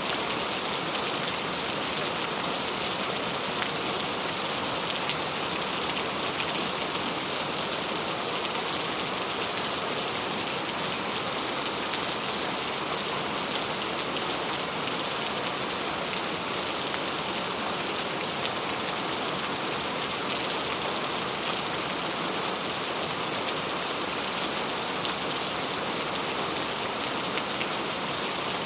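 Steady rainfall: a continuous even hiss of rain with fine scattered drop ticks on a surface.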